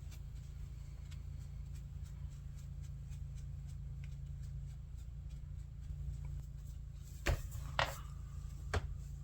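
Quiet handling on a workbench over a steady low hum, with faint small ticks, then three sharp knocks near the end, as objects are set down.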